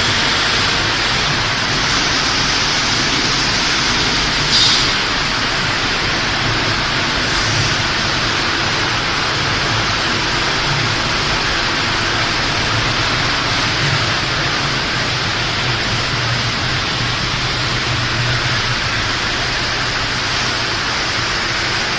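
Corn puff snack production line running: the steady mechanical noise of machinery with a low hum. A short high hiss comes about four and a half seconds in, and a fainter one a few seconds later.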